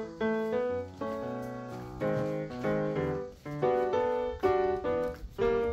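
Background music: a light piano tune of quick single struck notes, each ringing and fading.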